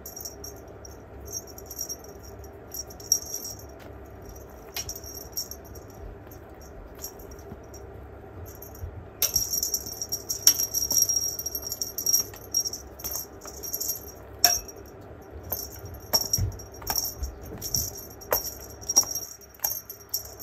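Small bell in a cat toy jingling in quick shakes as the cats bat and chase it, with scattered light knocks. The jingling is sparse at first and becomes almost continuous about nine seconds in.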